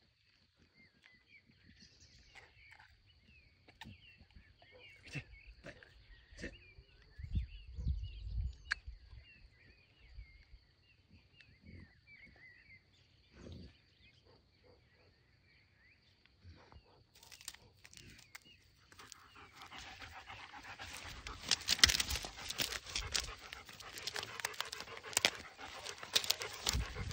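Faint birdsong and a steady high-pitched tone over a quiet meadow. About two-thirds of the way in, loud, close rustling and crackling begins as the German shepherd moves through the grass right by the microphone.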